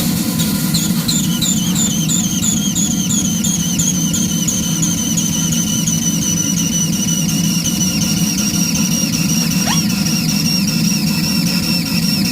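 3-inch-scale Fowler DCC traction engine running on steam: a high two-tone whistling squeal that pulses with each exhaust beat and slowly sinks in pitch, over a steady low rush. The builder has no idea where the whistling comes from. A short rising whistle sounds near the end.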